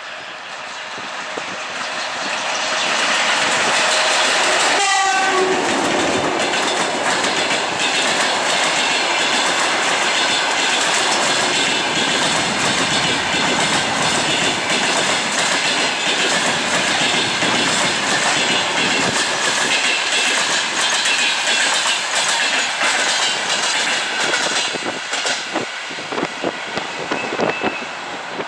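Passenger train hauled by an EP1M AC electric locomotive passing close by. The sound swells as the locomotive arrives, with a brief falling tone about five seconds in, then the coaches roll past with a steady loud running noise. Near the end the noise thins into separate wheel clacks over the rail joints as the last cars go by.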